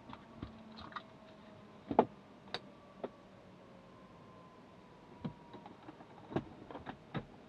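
Scattered clicks and knocks of a pilot handling switches and equipment in a quiet small-jet cockpit, the loudest about two seconds in, over a faint steady hum.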